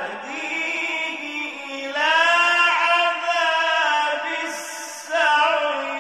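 A male reciter chanting the Quran in the melodic mujawwad style, holding long notes with ornamented turns. New, louder phrases begin about two seconds and about five seconds in.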